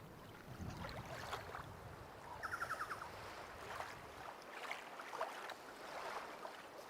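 Faint outdoor water ambience, a soft steady hiss with scattered light knocks. A quick run of about six rapid ticks comes about two and a half seconds in.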